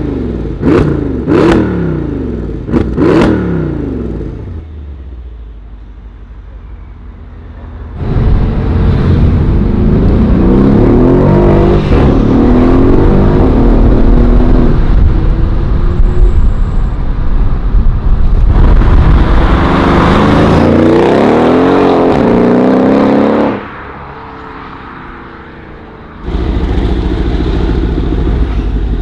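A RENNtech-tuned Mercedes CLS63 AMG's twin-turbo V8, fitted with high-flow downpipes, blipped in a few short, sharp revs that settle to idle. Then, heard from inside the cabin, it pulls hard twice with the pitch climbing, before the car is heard idling steadily near the end.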